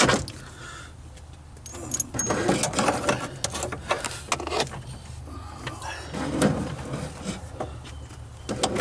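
A Posi-Lok actuator cable's braided sheath being pulled through a metal mounting bracket: scraping and rubbing with small clicks in irregular spurts, over a steady low hum.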